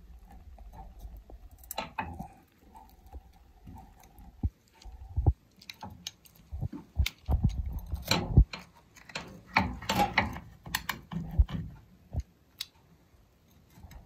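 Pizza being taken off the pan and cut: a faint steady hum for the first few seconds, then a dense run of knocks, clicks and crunches from about six seconds in as utensils and a blade work through the crisp crust.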